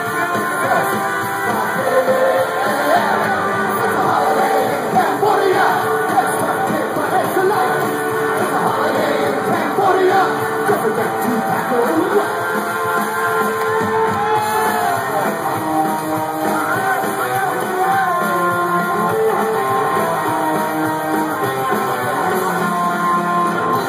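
Live rock band playing a punk song, with upright bass and electric guitar under a shouted lead vocal.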